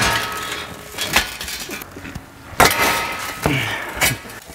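A steel VW Mk5 rear subframe banging and scraping against a wrecked car's shattered windshield and body as it is forced in: about five heavy knocks, the loudest at the start and about halfway through, with metallic ringing after them.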